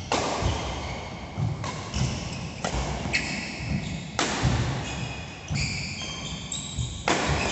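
Badminton rally: about five sharp racket strikes on the shuttlecock, each ringing out in a large hall, with short high squeaks of court shoes on the floor between them.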